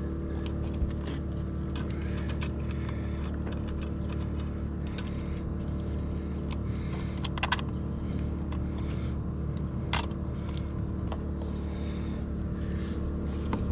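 A small engine runs with a steady, even drone. A few sharp clicks come over it, the clearest about ten seconds in.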